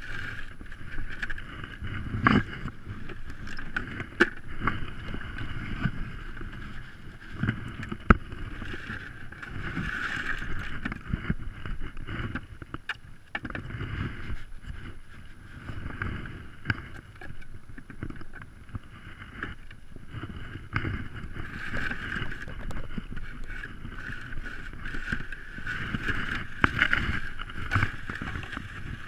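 Footsteps on crusty snow and dirt, with a loaded plastic ice-fishing sled scraping over the ground on its tow rope and jacket fabric rubbing close to the microphone. A few sharp knocks stand out in the first third.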